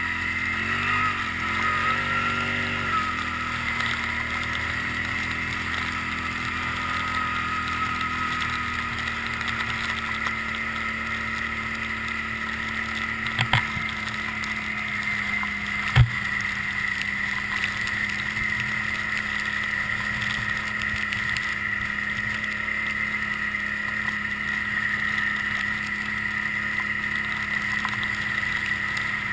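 Can-Am Outlander 800 Max ATV's V-twin engine running under way with a steady high whine, its pitch rising and falling for the first few seconds and then holding even. Two short knocks about halfway through.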